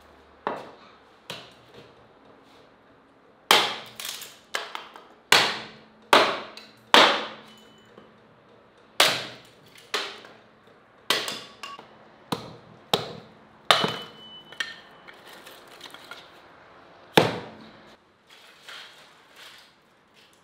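A hatchet chopping thin boards into kindling on a wooden chopping block. Sharp, irregular chops and knocks come in quick runs, with a pause near the end and then one last hard strike.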